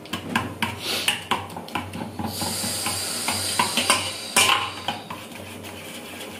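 A metal spoon beating eggs in a stainless-steel bowl: rapid clinks of metal on metal. About two seconds in, the clinking gives way to a steady hiss for about two seconds, and then a few more clinks follow.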